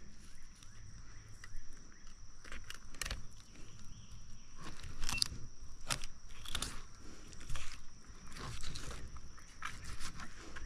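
Knife cutting and scraping along a fish's backbone and ribs during filleting: an uneven run of short scrapes and small clicks.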